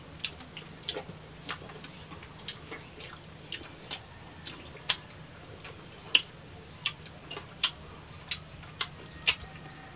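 Mouth sounds of eating santol by hand: irregular wet clicks and lip smacks, a couple a second, as the fruit's pulp is sucked off the seeds. A faint steady low hum runs underneath.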